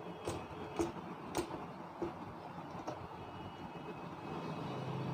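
Whiteboard eraser wiping across the board in about five short, quick strokes during the first three seconds, over a faint low steady hum that grows a little near the end.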